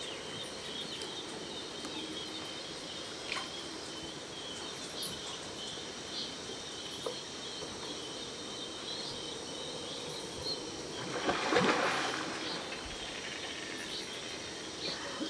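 Steady high-pitched insect drone with scattered short bird chirps. About three-quarters of the way through, a louder rushing, noisy sound swells and fades over about a second and a half.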